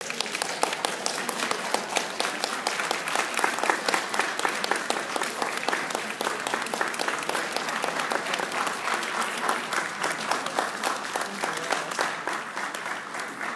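Audience applauding steadily, with dense overlapping clapping that begins to die down near the end.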